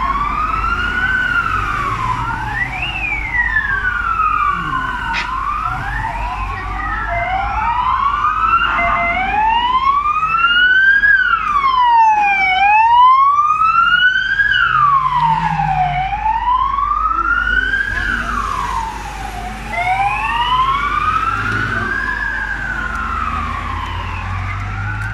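Several police and ambulance sirens wailing at once as the vehicles drive past. Their rising-and-falling sweeps of about two to three seconds run out of step with one another, over the low rumble of vehicle engines.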